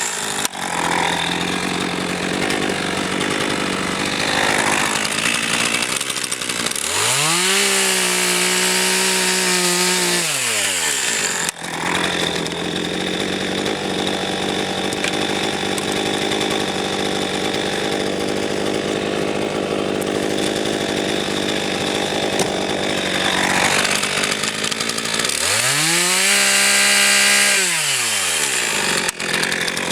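RedMax GZ400 two-stroke chainsaw running at high revs while cutting oak logs into firewood. Twice the engine pitch sweeps up and back down as the throttle is worked between and during cuts.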